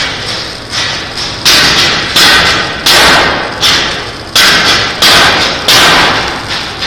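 A run of loud knocks on steel work, about one every 0.7 s, each starting suddenly and dying away over about half a second.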